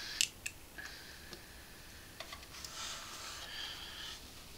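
Faint clicks and small knocks of an airbrush and a plastic model hull being handled, with a soft hiss lasting about a second and a half in the middle.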